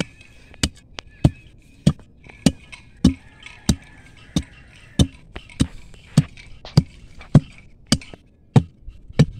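Ribbed steel rebar bar jabbed again and again into very hard soil to dig around a tree stump's roots, a sharp strike about every 0.6 seconds, some fifteen in all.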